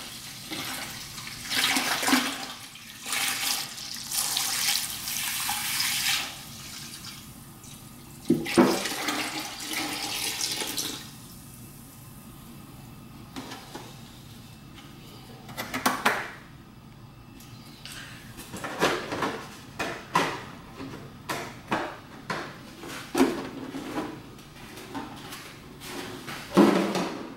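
Water poured from a plastic gallon jug splashing into a part-filled 5-gallon bucket of water-soluble coolant, a steady rush for the first six seconds and another pour at about eight to eleven seconds. Then a string of short knocks and bumps as the empty plastic jugs are handled and set down.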